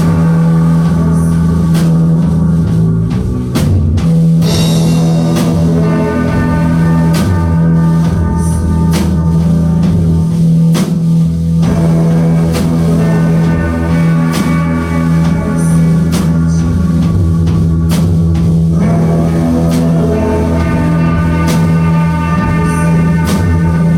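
Live psychedelic krautrock band playing a long repetitive jam: a droning bass note held under layered guitars, with a steady, driving drum beat.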